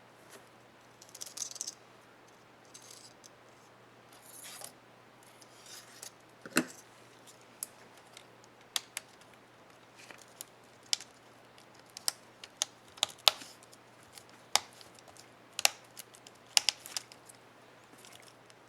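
Plastic keycap parts on an HP ENVY 15 laptop keyboard being handled and clicked during a keycap replacement. A few soft scraping sounds come first, then a run of sharp, irregular plastic clicks.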